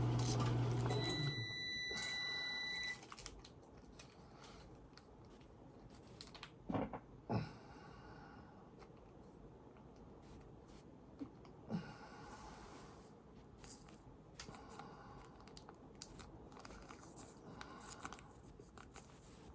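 Quiet handling of MRE food packets while eating: scattered soft rustles and clicks, a few louder ones. A brief high electronic beep sounds about a second in.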